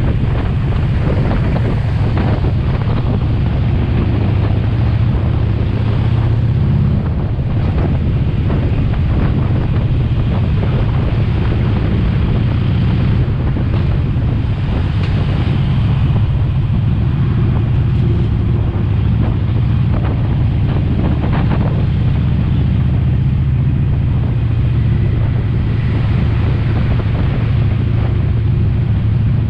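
Harley-Davidson Sportster 48's 1200 cc air-cooled V-twin engine running steadily while the motorcycle is ridden along, with wind buffeting the microphone.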